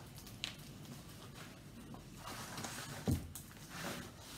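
Rolled canvases being slid out of a cardboard shipping tube: faint rustling and a few soft knocks of the tube and roll, the clearest knock about three seconds in.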